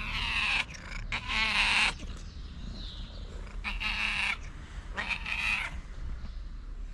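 Calico cat meowing four times, each call under a second long, the second one the longest and loudest.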